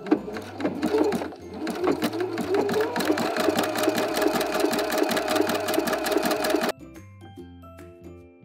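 Husqvarna Viking Epic 95Q sewing machine running fast and steady, sewing a wide zigzag stitch along a raw fabric edge with rapid needle strokes. It stops abruptly about two-thirds of the way through.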